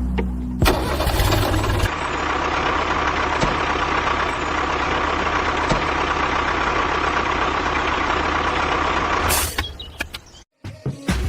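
A small motor running steadily, starting just under a second in and cutting off about nine and a half seconds in.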